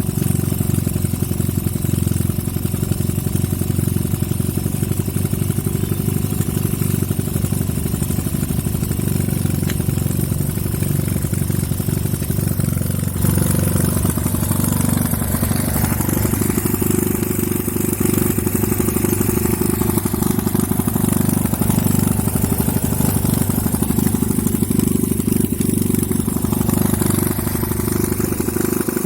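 Homemade four-stroke engine built from a refrigerator compressor, running steadily with a rapid, even firing beat.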